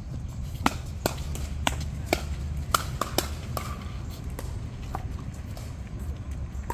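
A run of short, sharp knocks at irregular spacing, roughly two a second and thinning out after the first few seconds, over a steady low rumble.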